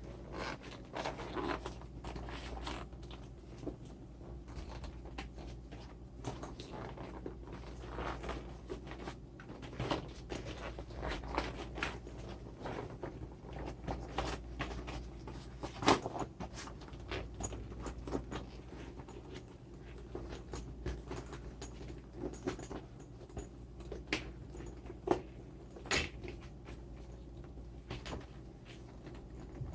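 A stitched leather handbag being handled and turned right side out by hand: irregular rustles, creaks and sharp knocks of stiff leather, over a steady low hum.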